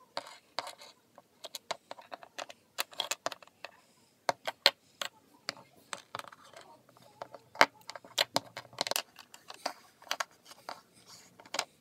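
Littlest Pet Shop plastic toy figures and accessories being handled and set down on a hard surface: scattered clicks and taps of plastic, irregular throughout, with a few louder knocks.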